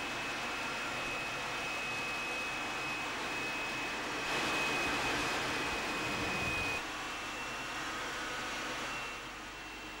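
Harrier jump jet heard from inside the cockpit in low-level flight: a steady rush of jet engine and airflow noise with a thin high whine. It swells for a couple of seconds mid-way, then drops back abruptly, and falls a little further near the end.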